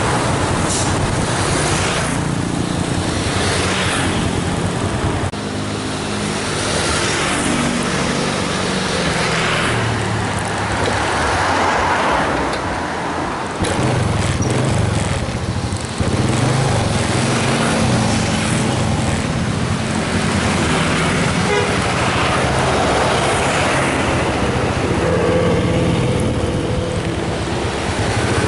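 Intercity buses' diesel engines running in heavy traffic, rising and falling over a steady road hiss, with horns tooting now and then.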